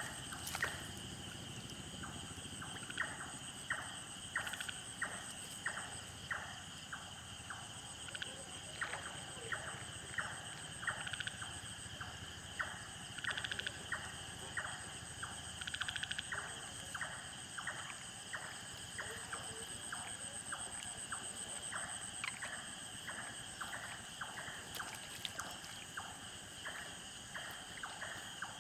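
Night-time chorus of insects and frogs at the water's edge: a steady high-pitched insect trill runs throughout, with short calls repeating about twice a second over it.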